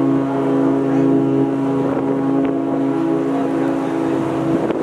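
A steady low drone with several overtones from the cruise ship Pacific Venus, heard from its deck over wind on the microphone; the lowest part of the drone cuts off near the end.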